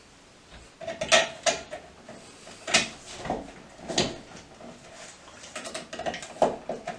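Scattered clicks, rattles and scrapes of hands working electrical wires and a wall switch in an electrical box, about half a dozen irregular handling knocks.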